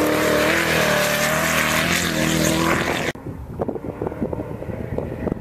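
Off-road race vehicle's engine running hard at high revs, its pitch rising and falling. About three seconds in the sound drops suddenly to a quieter rush with scattered light clicks and rattles.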